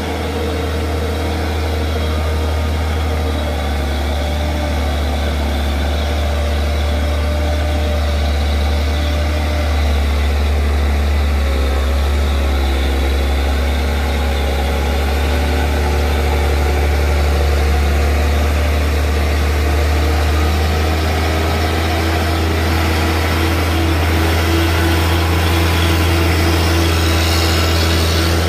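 Hino 500 truck's diesel engine pulling at low revs up a steep hairpin climb, a steady low drone that grows a little louder as the truck comes close.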